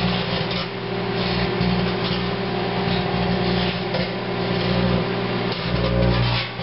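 Microwave oven running with a steady electrical hum while the grapes inside spark into plasma, a buzzing crackle that swells and fades.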